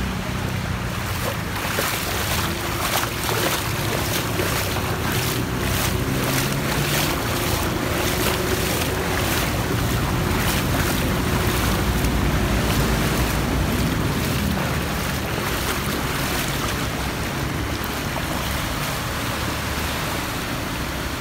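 Wading across a knee-deep flooded street: water sloshing and splashing with the steps over a steady rush of water, with wind rumbling on the microphone. The splashing eases off in the last few seconds, and a vehicle's engine is heard running through the floodwater.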